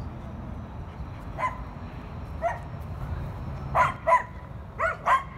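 A dog giving six short, high-pitched barks: two single ones spaced about a second apart, then two quick pairs near the end.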